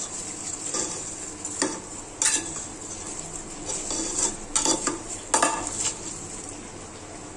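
A spoon stirring raw chopped tomatoes with sugar and spices in a pressure cooker, scraping steadily with a few sharper knocks against the pot.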